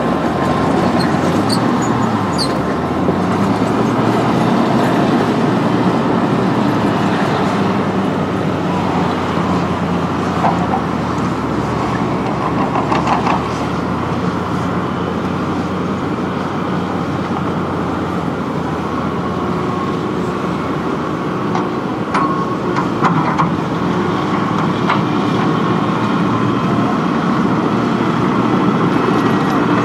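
Excavator engine running steadily under work, with a steady whine over it and a few short metallic clanks and rattles along the way.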